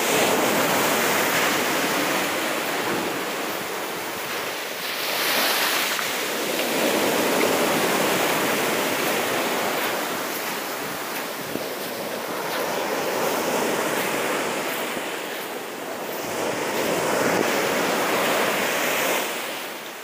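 Ocean surf breaking on a sandy beach, a steady wash of noise that swells and fades with each wave, dropping away near the end.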